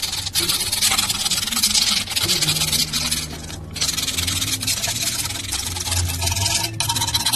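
Steel blade scraping rust off the steel frame of an old jewelry rolling mill by hand, in long strokes with short breaks between them.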